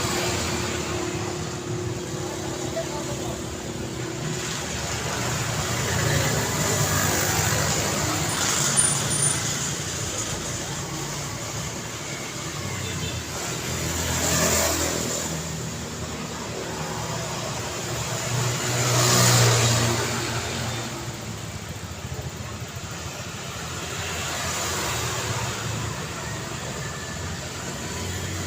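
Street traffic: vehicles pass one after another over a steady road hum, each swelling up and fading away. The loudest pass comes about two-thirds of the way in.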